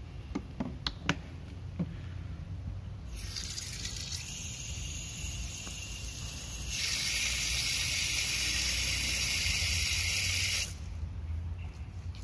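A few light clicks, then water hissing as it runs onto a soapy power-cutter air filter pad to wet it for washing. The hiss starts about three seconds in, gets louder about halfway through, and cuts off sharply near the end.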